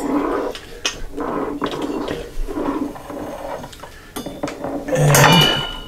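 Stainless steel popcorn kettle being handled and fitted into the popcorn machine: scattered metal knocks and clinks, with a short ringing clink near the end.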